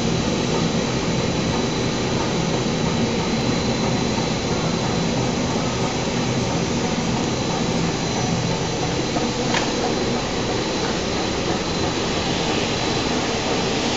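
Adhesive tape coating line running: a steady, even mechanical din with a faint continuous high whine over it.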